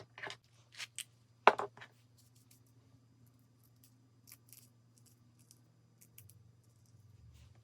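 Hair-styling tools being handled: a handful of sharp clicks and snips in the first two seconds, the loudest about a second and a half in, then faint small ticks.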